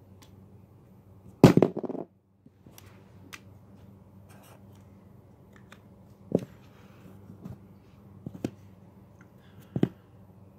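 A metal coin tossed into a cardboard box, landing with a quick clatter of several strikes about a second and a half in. Then a few light clicks and taps as the coin is picked up and set down on a paper pad.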